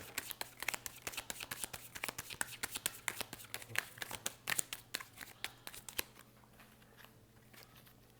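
Tarot deck being shuffled by hand: a quick run of crisp card clicks and flicks that stops about six seconds in.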